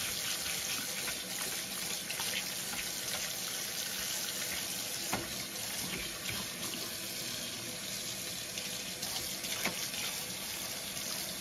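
Kitchen faucet running steadily into a stainless steel sink while a stiff-bristled scrub brush works latex paint out of a wide paintbrush held under the stream, with a few sharp clicks.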